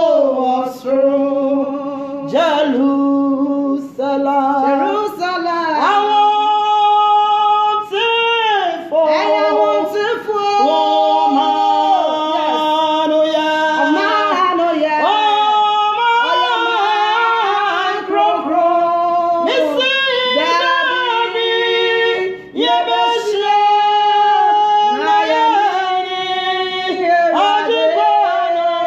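Two women singing a worship song together, loudly, in long held and gliding notes.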